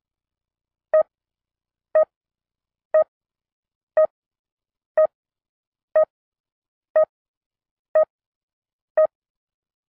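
Nine short, identical electronic beeps, one each second, with dead silence between them.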